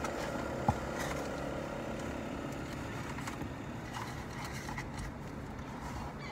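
Steady low rumble of a vehicle heard inside a car's cabin, with one sharp click about two-thirds of a second in and a few faint ticks after it.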